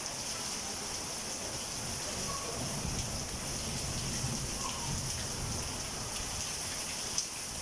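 Heavy rain with hailstones falling steadily: an even hiss with a few sharp ticks, and a brief louder knock near the end.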